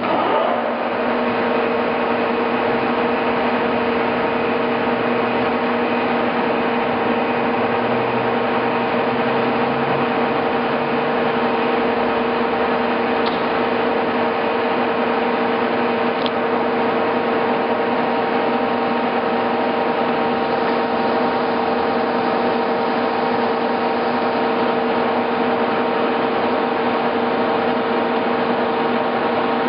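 Monarch model 1610 engine lathe coming up to speed and then running steadily, giving a constant mechanical hum with two clear steady tones.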